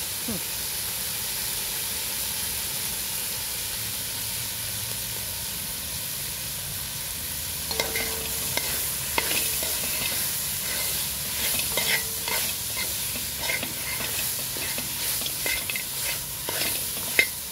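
Food frying in curry in a large metal pot, with a steady sizzling hiss. From about eight seconds in, a spoon scrapes and clicks against the pot as the food is stirred.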